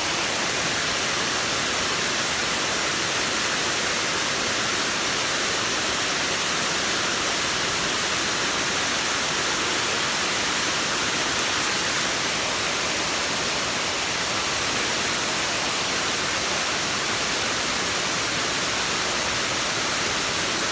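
Creek water running steadily over rocks, an even rushing hiss with no change in level.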